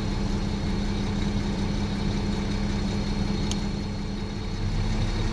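Caterpillar C9.3 six-cylinder diesel engine in a 966M wheel loader idling steadily at about 650 rpm.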